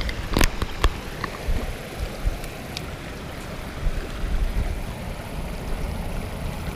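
Shallow creek water running and trickling over rocks, with a few sharp knocks in the first second from shoes stepping on the stones.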